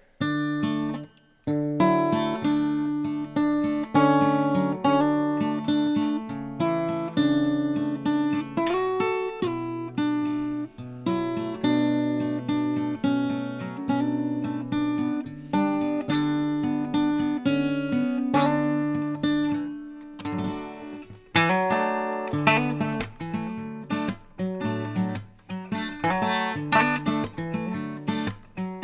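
Acoustic guitar playing chords and picked notes, close-miked near the sound hole by a condenser microphone with some bass cut on the EQ. The playing breaks off briefly about twenty seconds in, then comes back busier, with more strummed chords.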